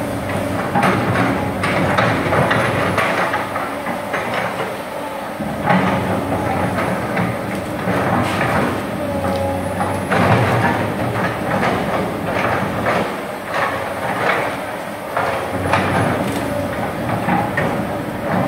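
Hydraulic excavator running hard under load, its engine droning steadily while repeated clanks and knocks come from the machine as it digs and spreads soil.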